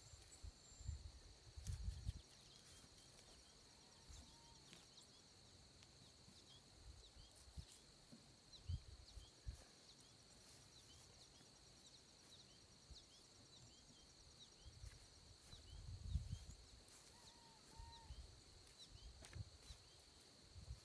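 Faint, steady high-pitched drone of crickets, with a few soft low thumps as birch poles are shifted and set in place.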